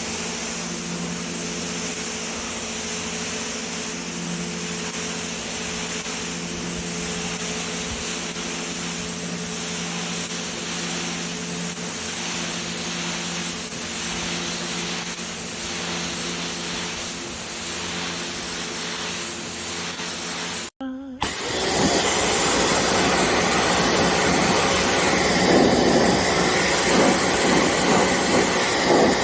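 Pressure washer running: a steady hum under the hiss of the water jet. About 21 seconds in, the sound changes abruptly to a louder, rougher spray of water.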